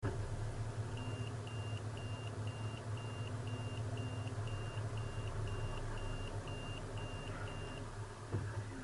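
A steady low engine hum with an electronic warning beeper sounding over it, fourteen short, even beeps at about two a second that stop near the end.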